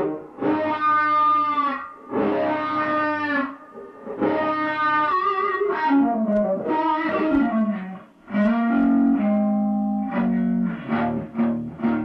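Electric guitar, a Stratocaster-style solid-body, played through an amplifier: sustained single-note phrases with bent notes, broken by short pauses, then a run of quicker picked notes near the end.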